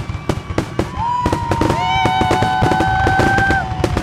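Fireworks going off in a rapid string of bangs and crackles. From about a second in, long, slightly falling whistles from whistling fireworks sound over the bangs.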